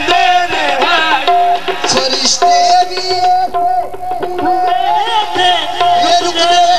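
Live Sufi devotional music: tabla strokes under a held reed-organ tone of a harmonium, with voices singing a sliding melody.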